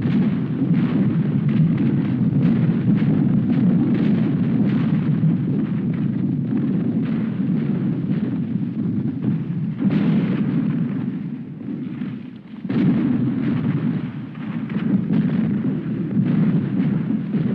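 Battle sound effect: a dense, continuous barrage of gunfire and explosions over a heavy low rumble. It eases off briefly about two-thirds of the way through, then comes back at full strength.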